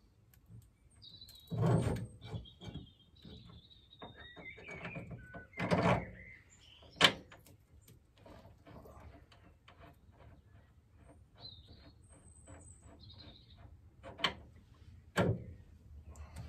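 Scattered knocks and metallic clinks of a suspension arm and its bolt being worked into place by hand under a car, the sharpest click about seven seconds in. Birds chirp in the background.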